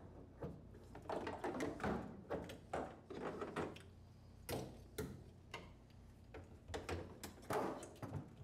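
Faint, irregular clicks and knocks of plastic fittings and coiled plastic suction tubing being handled and hung up on hangers inside a stainless steel machine cabinet.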